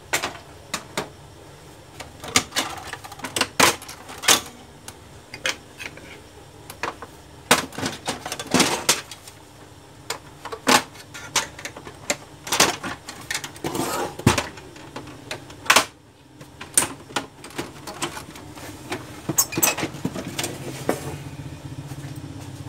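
Irregular clicks, knocks and rattles of a laser printer's plastic casing and parts being handled and taken apart, several sharp knocks a second at times, with short pauses between.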